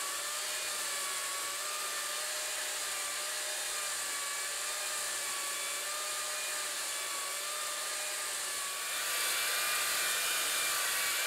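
Steady whine of a small motor, its pitch wavering slightly, over a faint hiss. It gets a little louder about nine seconds in.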